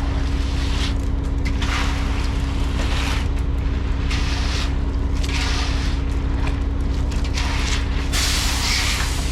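Concrete mixer truck's engine running steadily with a constant low hum. Irregular short bursts of hiss sound over it, the longest and loudest near the end.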